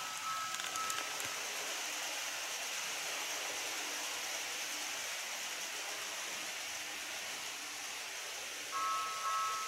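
Steady hiss, then near the end a two-tone electronic warning sound starts up: a model railway level crossing's alarm as the crossing activates.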